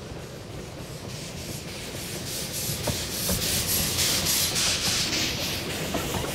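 Narrow-gauge steam tank locomotive working past close by, its exhaust beating in a rhythmic chuff of about three beats a second. The chuffing grows louder and is loudest as the engine goes by, about four seconds in.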